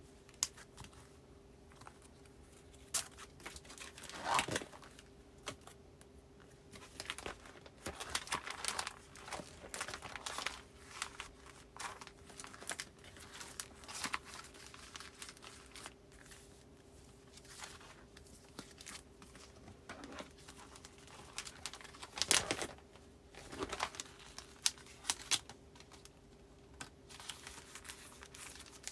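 Plastic file sleeves and paper postcards being handled: irregular crinkling and rustling with small taps as cards are slid into binder pockets, louder for a moment a little after four seconds and again around twenty-two seconds. A faint steady hum lies underneath.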